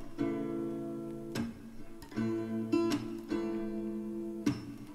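Background music: a guitar strumming chords, a new chord about every second, with no singing.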